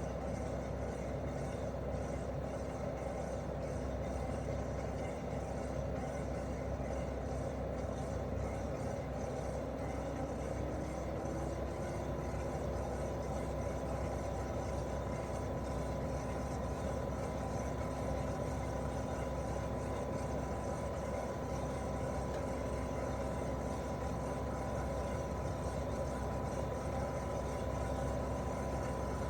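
Daikin R28RMV mini-split outdoor unit running in heating mode: a steady hum from its twin-cylinder swing compressor and fan. About ten seconds in a faint tone rises in pitch, and a thin higher whine sets in soon after and holds.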